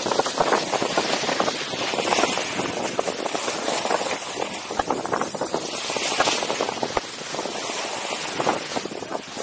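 Skis sliding and carving down groomed snow: a continuous scraping hiss made of many short, rough scrapes.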